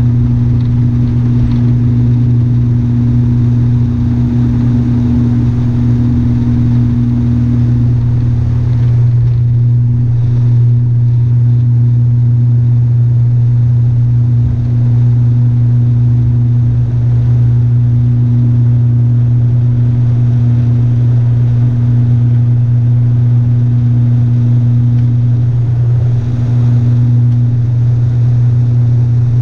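ATR 72 turboprop engines and propellers at takeoff power, heard inside the cabin: a loud, steady low drone with a second, higher tone above it. It holds steady through the end of the takeoff run, liftoff and the initial climb.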